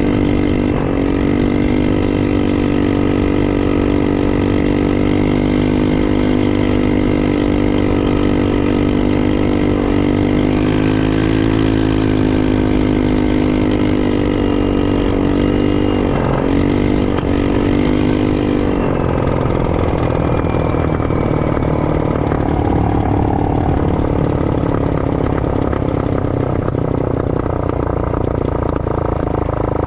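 ATV engine running while riding, holding a steady note with brief dips in engine speed about a second in and again around sixteen to seventeen seconds. After about nineteen seconds the steady engine note gives way to a rougher rumble.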